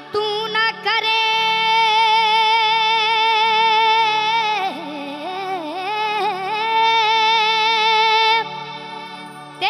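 Qawwali singing: a high voice slides up into a long held note, wavers and bends in pitch around the middle, then holds the note again before breaking off near the end. A low, steady drone runs underneath.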